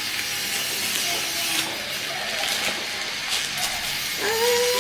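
Packaging rustling and crinkling as a bag is unwrapped and handled. A short vocal sound comes in near the end.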